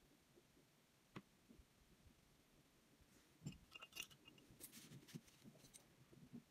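Near silence with faint small clicks and rustles of acrylic paint tubes being handled on a plastic floor sheet: one click about a second in, then a cluster of light taps over the next couple of seconds.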